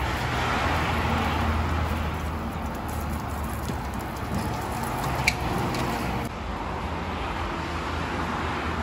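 A car engine idling steadily with a low hum, with one short click about five seconds in.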